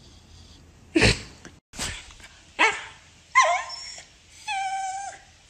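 A dog barking four times in quick succession, the last a higher yelp that drops in pitch, then one drawn-out steady whine near the end.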